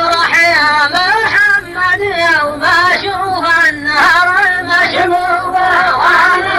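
A voice chanting a line of Arabic verse in a slow melody, with wavering pitch and long held notes.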